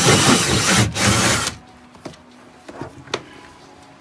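A saw cutting through wood with quick, rhythmic strokes that stops abruptly about a second and a half in. A few light knocks follow.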